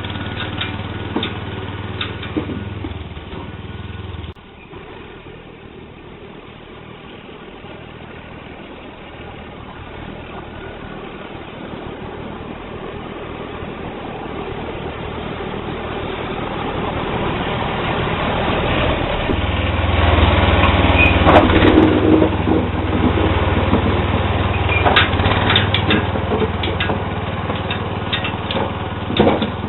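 Sears Suburban SS12 garden tractor engine running while plowing snow. It drops suddenly about four seconds in, then grows steadily louder, loudest about two-thirds of the way through, with scattered clanks near the start and near the end.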